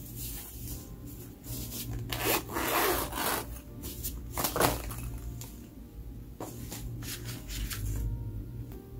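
Irregular rubbing and scraping noises in several bursts, the longest about a second long, with a few sharp clicks between them.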